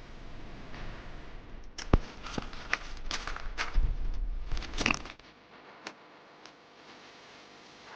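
Knocks, clicks and scrapes of hand tools and parts being handled during work on a car, busy for about five seconds with a sharp knock about two seconds in, then dying down to a few faint ticks.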